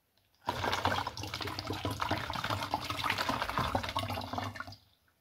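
Water being poured into a plastic soda bottle of citric acid powder, splashing and gurgling as it fills; the pour starts about half a second in and stops just before the end. This is the citric acid solution being mixed for a homemade citric acid and baking soda CO2 generator.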